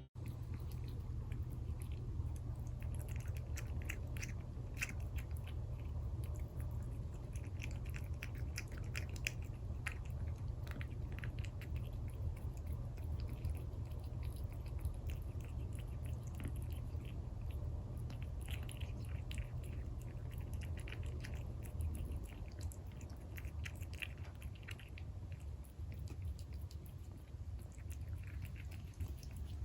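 A British Shorthair × Scottish Fold kitten chewing food, with many small, irregular crunches over a steady low hum.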